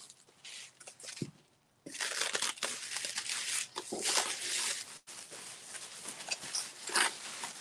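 Plastic stretch wrap being pulled and torn off by hand: squeaky crinkling and tearing, a few faint crackles at first, then continuous from about two seconds in, with one sharp crack near the end.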